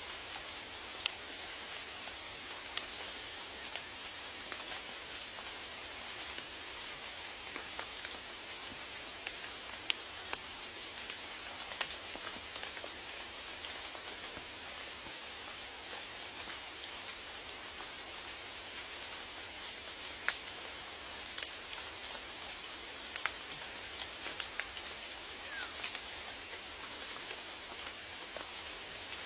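Steady rain falling, an even hiss with scattered single drops striking close by.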